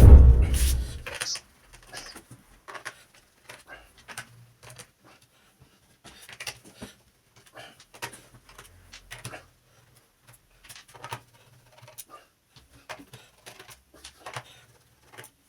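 A loud thump at the very start, then irregular soft clicks and taps of plastic and small parts being handled, as a laptop is worked on.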